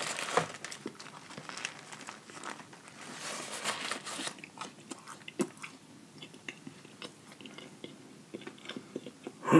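A person chewing a mouthful of Popeyes fried chicken sandwich, with crunching and wet mouth-smacking clicks. It is busier in the first half and softer toward the end.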